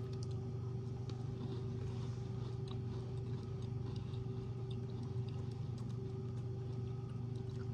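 Faint chewing and small crunches from eating a strawberry cream-filled biscuit, over a steady background hum.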